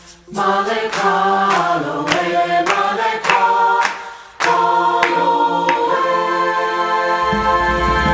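Choir singing a traditional Solomon Islands canoe chant in harmony, with sharp handclaps between the short sung phrases; from about halfway a chord is held, and a low rumble comes in near the end.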